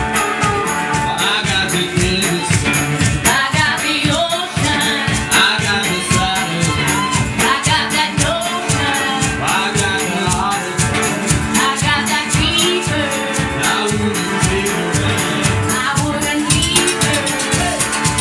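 Live skiffle band playing with a lead vocal: singing over a resonator guitar and string-band backing, driven by a steady beat of percussive strokes. The singing stops about a second and a half before the end while the band plays on.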